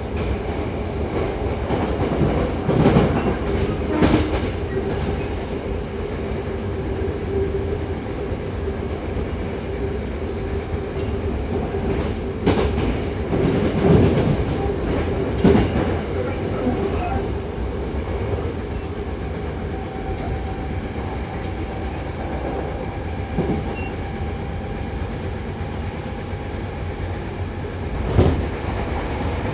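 Hankyu 8000-series electric train running at speed, a steady rumble with a constant motor tone. Irregular sharp clacks come from the wheels passing over rail joints.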